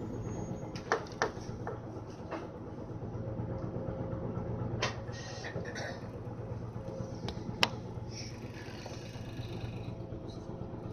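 Hino LJG-HU8JLGP hybrid low-floor city bus running, heard inside the cabin: a steady low drone with a few sharp rattles and knocks from the body, the loudest about one second in and again near eight seconds.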